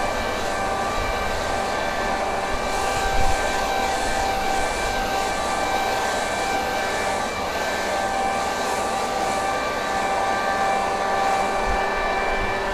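Gas-powered leaf blower running steadily at high speed, a constant engine whine over rushing air, used to blow up loosened thatch from the lawn.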